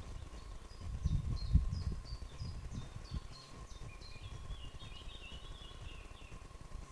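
A songbird singing: a run of short, high notes each slipping downward, followed from about four seconds in by a lower, rapid twittering warble. Low rumbling thumps on the microphone about one to two seconds in, under a faint steady hum.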